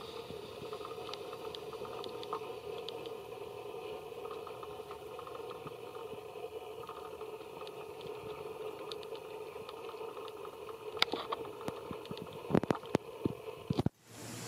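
Steady outdoor background noise with scattered faint clicks, then several sharp clicks and knocks, loudest about eleven seconds in and in a cluster near the end; the background cuts off abruptly and changes just before the end.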